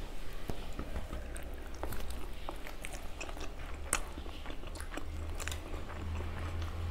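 Close-up chewing and biting of soft steamed momos (dumplings), wet mouth clicks and smacks scattered irregularly throughout, over a steady low hum.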